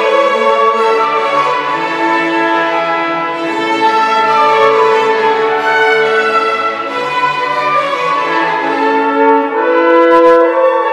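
Youth chamber orchestra playing a classical piece: French horns hold long notes over the bowed strings.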